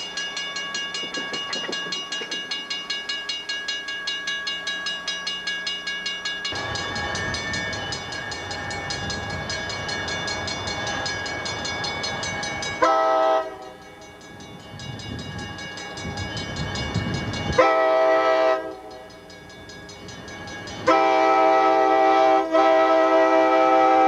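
Railroad crossing bell ringing, about two strikes a second. Then a diesel freight locomotive rumbling on the track and sounding its horn in three blasts, the last one held long.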